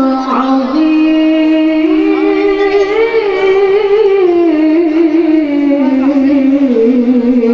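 A young male qari reciting the Quran in melodic tilawah style into a hand microphone: one voice in long held notes joined by wavering, ornamented turns.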